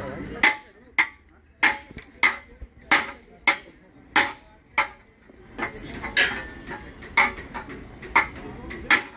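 Sharp, ringing metal-on-metal hammer strikes, evenly paced at about one every two-thirds of a second. A mechanic is knocking out a dent pushed into a scooter's front body in a collision.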